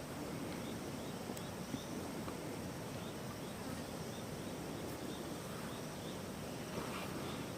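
Forest ambience: a steady rushing hiss with a small high chirp repeating about twice a second over it, and a few faint clicks.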